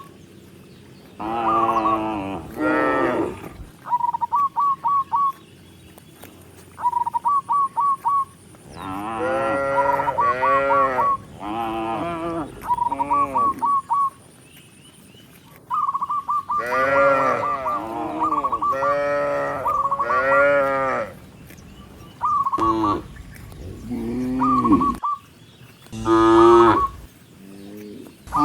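Cattle in a herd mooing, one after another and sometimes overlapping: about a dozen long moos, each rising and falling in pitch. Between the moos come runs of four or five short, rapid, high-pitched calls.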